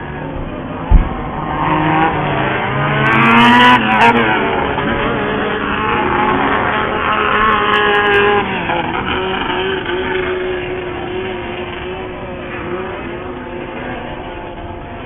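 Off-road race buggy engines revving, their pitch rising and falling as the buggies accelerate and pass, loudest a few seconds in and fading toward the end. A sudden thump about a second in.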